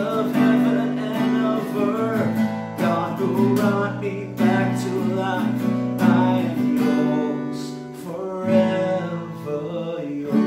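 A man singing a worship song while strumming chords on an acoustic guitar.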